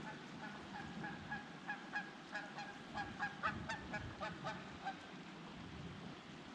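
Faint honking of Canada geese: a quick run of many short calls that grows denser about two seconds in and stops about five seconds in.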